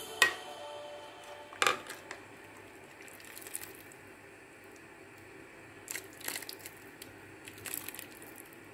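Metal ladle knocking against the side of the soup pot with two sharp clinks in the first two seconds, then quieter scraping and handling sounds as it lifts chicken and vegetables out of the broth.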